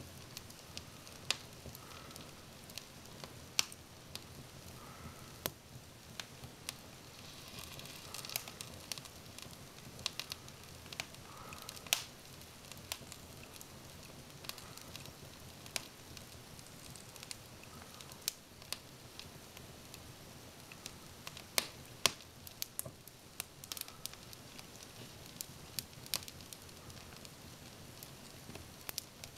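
Wood fire burning in a Morsø 1126 wood stove: irregular sharp crackles and pops over a steady low hiss, with a denser run of crackling about eight seconds in.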